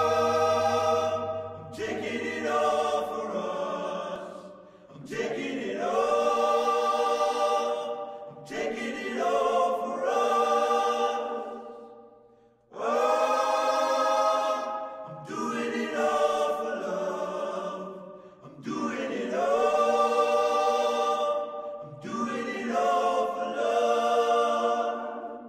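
Layered a cappella vocal harmonies, choir-like, sung in long held chords without drums. The phrases swell and fade, with a short break about halfway through.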